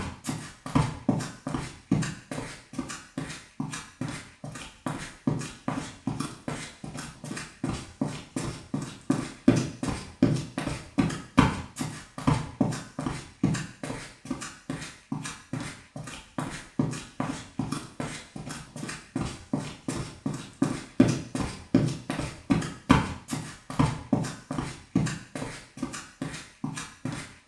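Quick footsteps on a wooden floor: a fast, continuous run of hollow-sounding steps, several a second, with no pause.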